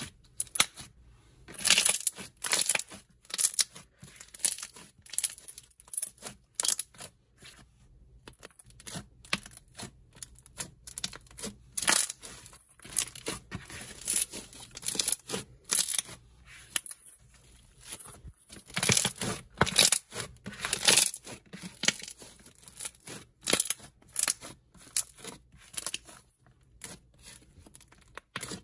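Thick, glossy s'mores-scented slime being squished, folded and pressed by hand, with dense, irregular crackles and bubble pops as trapped air bursts from the inflated slime.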